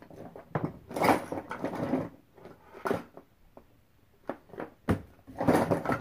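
Small toys and objects being rummaged through and handled: rustling and knocking in several short bursts, with scattered sharp clicks.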